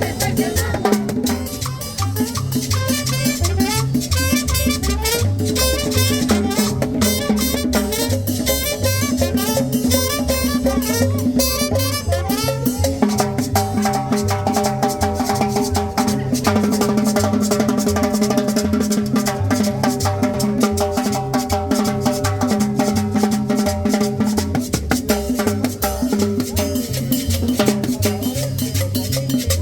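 Latin tropical dance music, salsa-style, with drums and rattling hand percussion keeping a steady beat.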